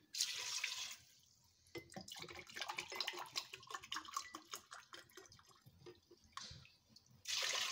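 Water poured from a glass into a pressure cooker onto pieces of raw beef, splashing against the metal pot, in separate pours: a short pour at the start, a longer one of a few seconds from about two seconds in, and a brief one near the end.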